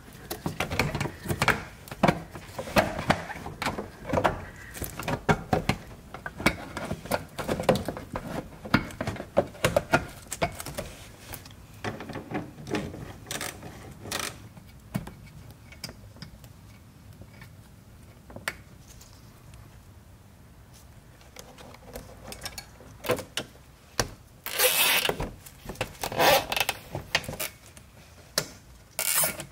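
Plastic engine splash guard being fitted back under a car: irregular knocks, clicks and scrapes of the panel against the underbody, then a hand tool working its fasteners. A few louder rasping bursts come near the end.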